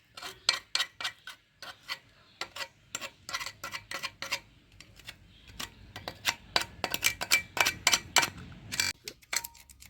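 Tools and small metal parts clicking and clinking in a quick, irregular run of sharp taps while a motorcycle is worked on, busiest in the second half.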